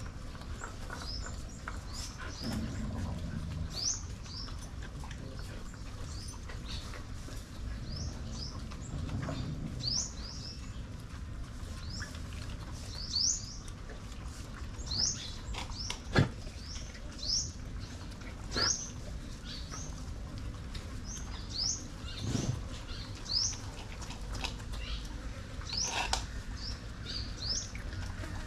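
Short, high-pitched animal chirps, each falling in pitch, repeating irregularly several times every couple of seconds, with a few sharp knocks among them.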